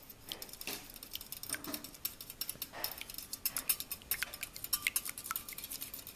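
A metal fork beating an egg in a ceramic bowl: a fast, uneven run of clinks as the tines strike the bowl, several a second.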